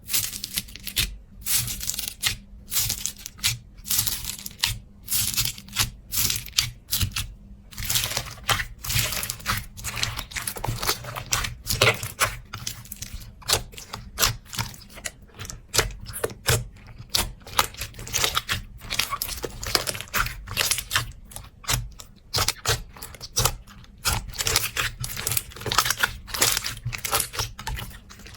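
Slime being squeezed and worked, giving a dense, irregular run of crackles and pops.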